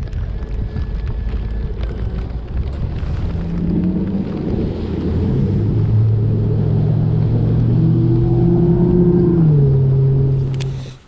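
Boat motor running with low rumble and wind noise; about four seconds in its pitch rises as it speeds up, holds steady, drops a little near the end, then cuts off suddenly.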